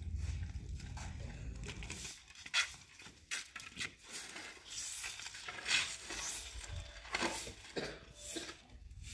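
Straw brooms sweeping a stone-paved courtyard: irregular brushing swishes and scrapes. A low rumble fills the first couple of seconds.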